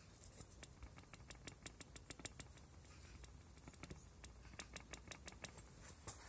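Faint light clicking in quick runs of several clicks a second, as a splined shaft in its needle bearing in an Aprilia Ditech scooter's Morini engine crankcase is worked by hand.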